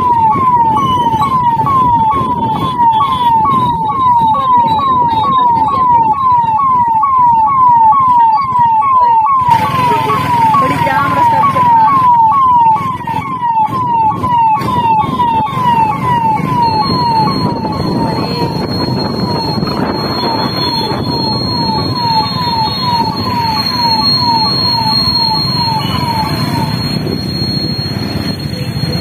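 A loud electronic siren-like chirp, a quick falling sweep repeated nearly twice a second at an even pace, goes on for most of the stretch and stops near the end. Under it runs steady road and traffic noise from riding on a motorcycle, and a thin high whine joins about halfway through.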